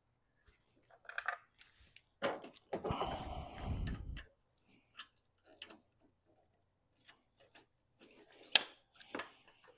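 Cordless 3/8-inch ratchet running briefly to spin out an alternator bracket bolt, a burst of about a second and a half roughly three seconds in. Scattered clicks and knocks of the socket and metal parts being handled, with one sharp click near the end.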